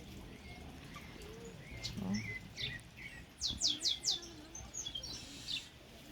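Small birds chirping in short calls, with a quick run of four falling notes about three and a half seconds in.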